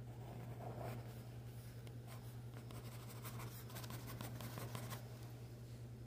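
Graphite pencil scratching on paper in many quick, short shading strokes, thickest from about two and a half to five seconds in, over a steady low hum.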